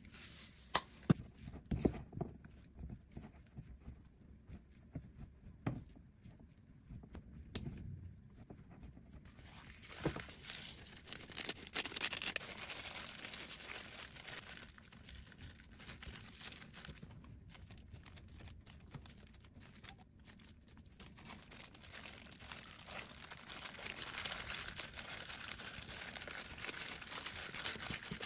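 Disposable plastic gloves crinkling and rustling as hands press rice onto a sheet of laver and roll it into kimbap. A few sharp taps come in the first couple of seconds, as sesame seeds are shaken from a shaker over the rice.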